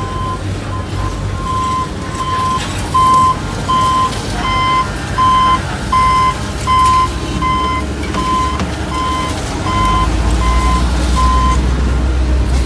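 Reversing alarm of a construction vehicle beeping about twice a second over a diesel engine's low running. The beeping stops near the end as the engine grows louder.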